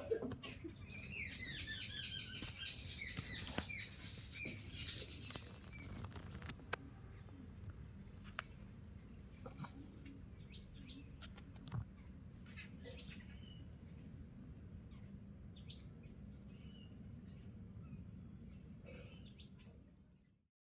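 Outdoor ambience: a steady, high-pitched insect drone runs throughout, with a bird singing a quick run of chirps for a few seconds near the start. It all fades out near the end.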